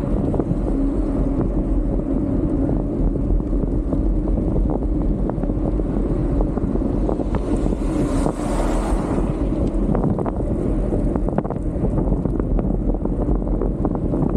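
Steady rush of wind on the microphone while riding a bicycle along a road. About eight seconds in, a tanker truck passes, and its noise swells and fades over a second or two.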